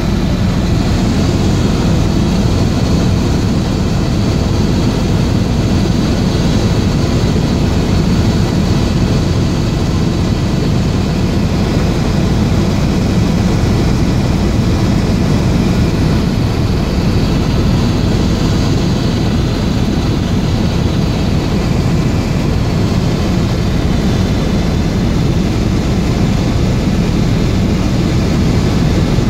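Helicopter running steadily: a loud, even drone of engine and rotor with a few faint steady tones above it.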